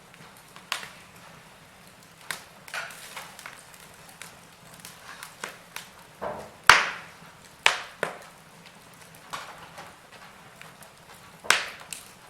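Wood fire crackling in a fireplace: irregular sharp pops and snaps over a soft hiss, the loudest pops a little past halfway and near the end.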